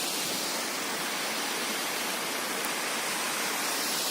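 Waterfall pouring steadily into its pool, a constant rushing hiss of falling water.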